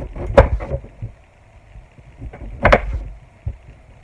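A knife chopping boiled pork ribs on a plastic cutting board. There are two hard knocks of the blade striking the board, about two seconds apart, with lighter taps and cutting in between.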